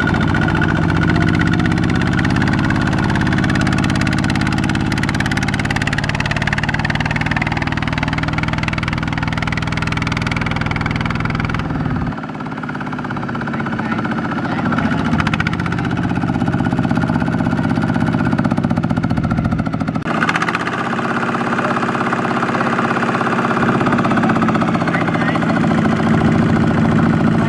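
Single-cylinder diesel engine of a Kubota RT155 walking tractor running steadily under load as it tries to drag its loaded trailer out of the mud. The sound changes abruptly twice, about twelve and twenty seconds in.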